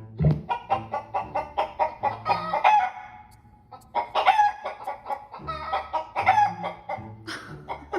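Recorded chicken clucking and cackling played through a speaker, in two runs of rapid clucks with a short pause about three seconds in.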